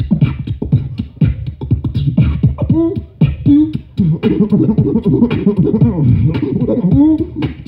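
Beatboxing: a man imitating DJ vinyl scratching with his mouth, a fast run of clicks and quick up-and-down pitch swoops that grows denser about halfway through.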